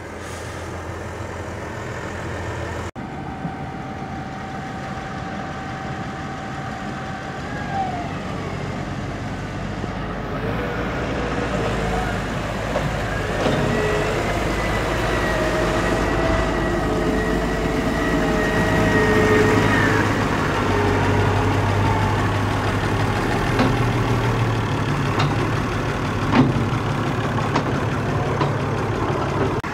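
Tractor engine running steadily, getting slightly louder through the middle, with a thin high whine held for several seconds midway.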